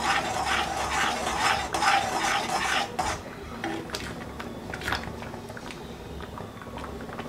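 Metal spoon stirring and scraping thick rava pongal in a black iron kadai, in quick, even strokes, about three a second. About three seconds in it turns quieter, with occasional light clicks of the spoon against the pan.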